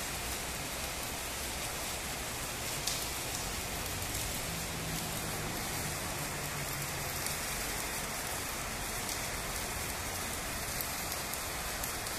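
Electric arc welding: the arc crackles and sizzles steadily, with one sharper pop about three seconds in.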